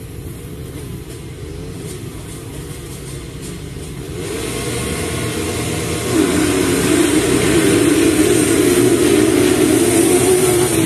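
A pack of motocross bikes racing, engines revving with wavering pitch: faint at first, growing louder about four seconds in and loud from about six seconds in as the bikes approach.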